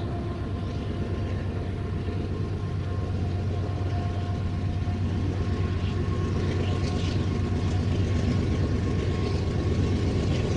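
Union Pacific coal train rolling past: a steady rumble of wheels on rail with a strong low hum, plus a thin steady whine above it. The sound grows gradually louder as the train's two mid-train GE AC4400CW diesel-electric distributed-power locomotives come up.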